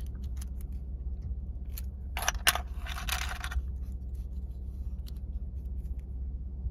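Small metallic clicks and clinks of a clipper blade being handled and squeezed in a hand tool for setting its sockets, with a cluster of sharper clinks a little past two seconds in and a brief scrape just after.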